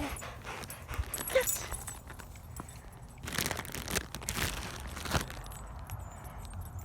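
Chesapeake Bay Retriever panting after running for a thrown ball, a few heavy breaths loudest between about three and five seconds in.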